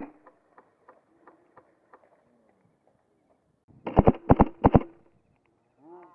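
An airsoft rifle fires a quick burst of about six shots about four seconds in, close to the microphone. Fainter single shots from other airsoft guns tick sporadically around it.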